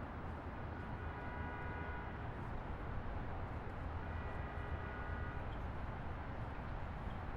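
Highway traffic: a steady rumble of passing vehicles and tyre noise, with a faint high whine rising out of it twice as vehicles go by.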